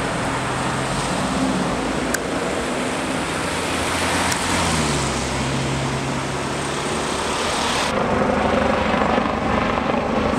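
BK 117 rescue helicopter's rotor and turbine noise overhead, growing louder in the last couple of seconds, over the low hum of vehicle engines running nearby whose pitch drops about four seconds in.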